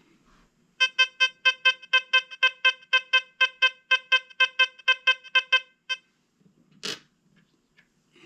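XP Deus 2 metal detector sounding its target tone on a 1936 buffalo nickel: a quick run of about twenty short, identical beeps at about four a second, which then stop. A single knock follows near the end.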